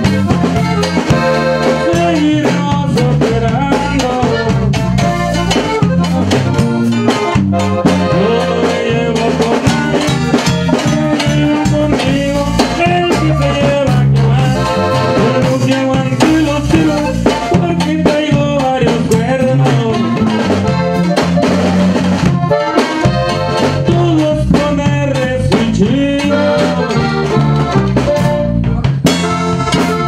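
Live norteño music: a Hohner button accordion plays the melody over a bajo sexto, electric bass and drum kit, with a steady beat throughout.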